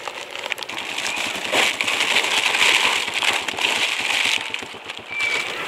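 Dense crinkling and crackling as a coil of plastic-insulated electrical wire and its wrapping are handled. It builds about half a second in, is loudest mid-way and eases off near the end, with a brief high squeak just before the end.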